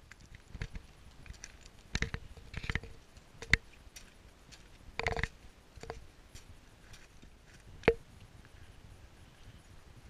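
Footsteps on loose scree: irregular crunches and sharp clinks of rock underfoot, a few of them ringing briefly.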